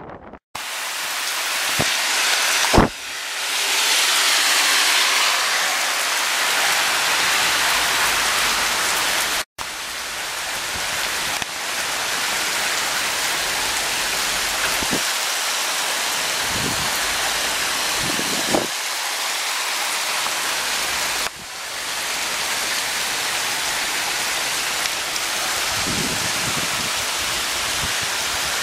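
Heavy downpour of rain falling on a wet street, a loud steady hiss. It cuts out abruptly twice, and there is a brief sharp knock about three seconds in.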